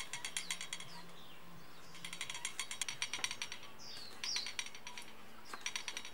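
Kitchen knife chopping red chilies on a wooden cutting board: quick runs of light taps in three spells, the blade knocking on the wood with each cut. A few birds chirp briefly in the background.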